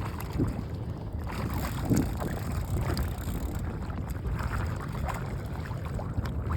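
Wind buffeting the microphone on an open fishing boat, a steady low rumble with a few brief small knocks and rustles.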